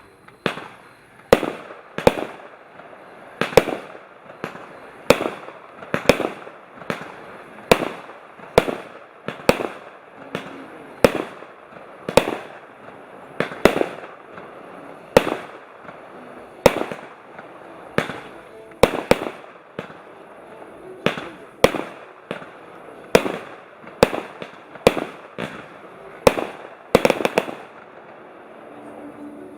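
A 25-shot, 20 mm consumer fireworks cake firing shot after shot: a regular run of sharp bangs about one a second, with a steady hiss between them and two shots close together near the end. The firing stops just at the end.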